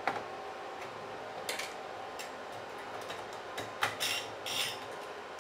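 A metal CPU heatsink being set down and seated in a server chassis: scattered light clinks and taps of metal on metal, with a quick cluster of several about four seconds in.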